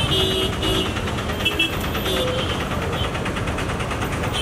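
Busy city road traffic: a steady din of vehicle engines, with a few short, high, horn-like tones in the first two seconds.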